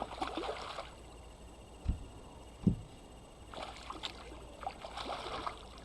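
Water splashing and sloshing beside a boat as a hooked bass is brought in, with two dull knocks against the boat a couple of seconds in and a low rumble underneath.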